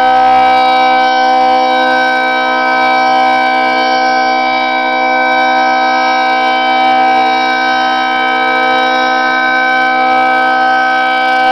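1973 Federal Signal 2T22A dual-tone rotating outdoor warning siren sounding a steady-pitch alert tone, its loudness slowly swelling and fading as the rotating head turns.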